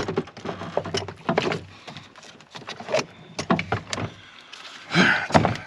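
A heavy truck battery being maneuvered into its tray: a run of irregular knocks, clunks and scrapes against the metal hardware, with a louder scrape about five seconds in as it settles into position.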